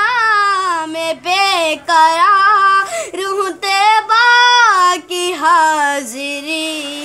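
A boy singing a naat unaccompanied: one high voice in long, wavering, ornamented notes that slide up and down, with brief breaths between phrases.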